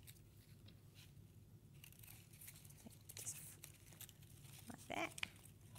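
Faint rustling and peeling of double-sided sticky tape and paper as plastic bottle tops are pressed onto paper-strip legs, with a brief scratchy tear about three seconds in.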